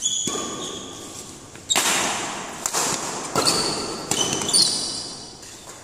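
Badminton rally: rackets striking the shuttlecock about four times, sharp cracks that echo in a large hall, the one a bit past halfway the hardest, from an overhead smash. Short high-pitched squeaks from players' shoes on the court mat come between the hits.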